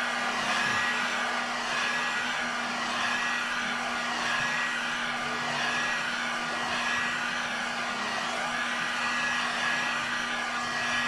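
Hot-air heat gun blowing steadily, a rush of air with a low hum and a faint high whine from its fan, as it heats the edges of a tablet to soften the screen adhesive.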